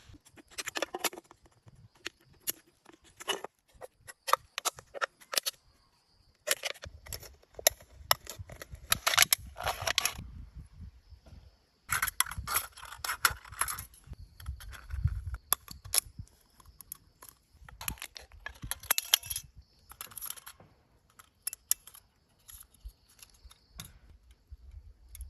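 An aluminium beer can being cut and worked by hand: a run of sharp metallic clicks, snips and crinkles in uneven bursts, with short pauses between them.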